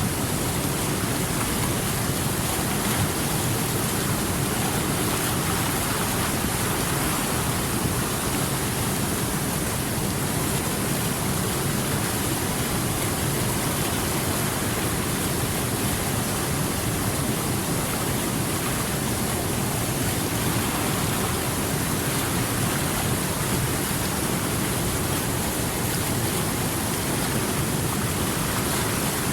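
River water flowing, a steady, even rushing noise that does not change.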